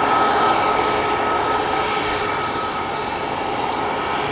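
Boeing 737 MAX 10's CFM LEAP-1B turbofan engines running at taxi power: a steady jet rush with a thin high whine that weakens about halfway through.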